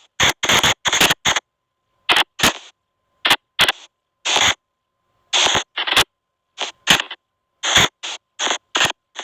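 SP White Noise Box ghost-box app playing irregular short bursts of hiss and garbled radio-like noise, each cut off sharply, with dead silence between them. A faint steady tone sounds under the bursts in the middle.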